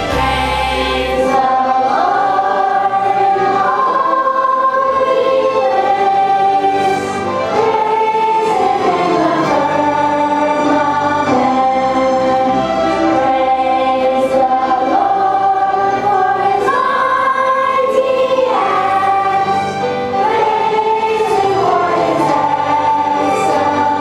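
Children's choir singing a Christian praise song in chorus over instrumental accompaniment, continuous and steady in level.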